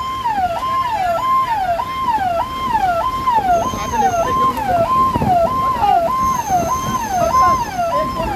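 Electronic siren wailing in a fast repeating cycle, about two a second: each cycle jumps up in pitch, holds briefly and slides back down, over a background rumble of traffic.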